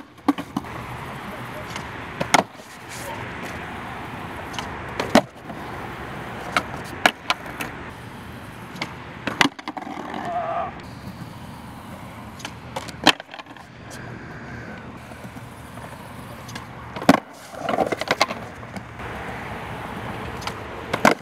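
Skateboard wheels rolling on concrete, broken by about a dozen sharp wooden cracks of the tail popping and the board slapping down as fakie 360 flips are tried, with a cluster of cracks near the end.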